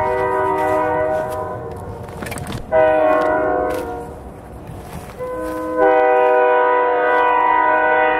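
Diesel freight locomotive's air horn sounding three blasts, several notes at once: a blast of about two seconds, a short one about three seconds in, then a long one from about five seconds in that is the loudest.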